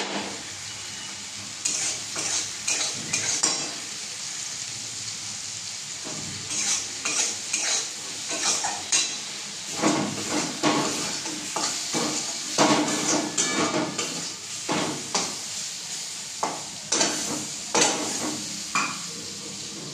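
A spatula stirring and scraping food in a steel wok over a steady frying sizzle, in runs of quick strokes with short pauses between.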